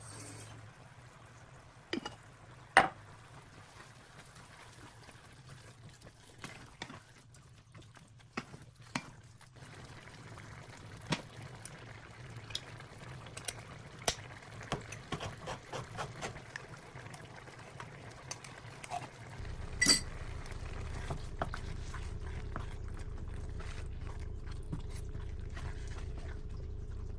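Cooking sounds from a nonstick pan of meat and tomato sauce: a wooden spatula stirring and scraping, then a handheld can opener clicking its way around a can lid, with scattered sharp taps. A little over two-thirds of the way in, a steady low hum starts and runs under the stirring of the simmering sauce.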